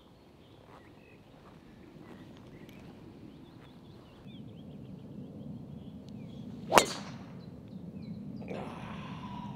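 Golf driver striking a ball off the tee: one sharp crack about seven seconds in.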